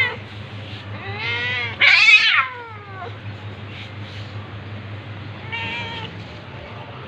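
Domestic cats meowing and yowling: a long, wavering call starts about a second in and turns loudest and harshest near the middle, then a shorter call follows near the end.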